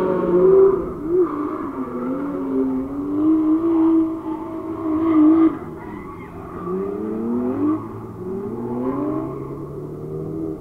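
Drift cars' engines revving on and off the throttle through a corner, pitch rising and falling; one engine holds high revs and cuts off sharply about five and a half seconds in, then two shorter rising revs follow, with tyres sliding underneath.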